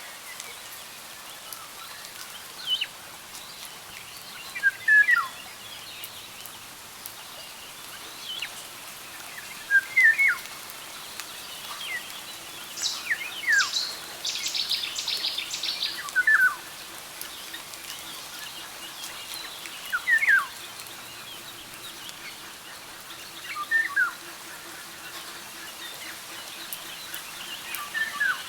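Birds calling: short descending call notes repeat every three to four seconds, and a rapid high chatter comes about halfway through, all over a steady background hiss.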